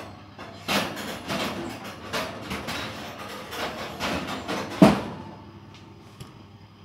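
Metal oven tray and rack scraping and clanking as the tray is shifted into the middle of the oven, a string of rattling knocks ending in one loud clank about five seconds in.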